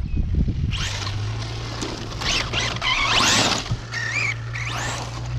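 Traxxas Slash RC short-course truck driving on dirt: its electric motor and drivetrain whine, rising and falling in pitch as it speeds up and slows, loudest about three seconds in.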